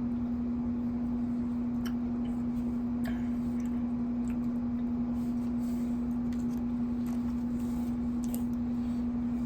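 Steady hum of a room air conditioner: one constant low tone over a faint rushing haze, with a few faint clicks of handling.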